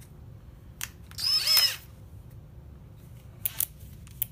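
Cordless drill motor spinning in a few short bursts, the longest and loudest, a brief whine, about a second and a half in, with shorter blips near the end.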